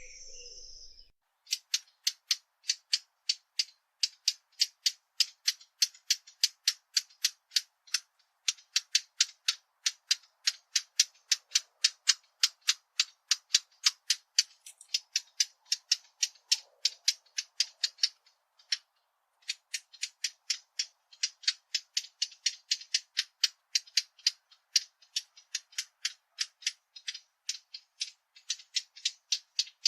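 A Sylvia warbler (fig bird) giving a long run of hard, dry 'tac' calls, about three a second, with a short break about two-thirds of the way through. A song phrase trails off in the first second.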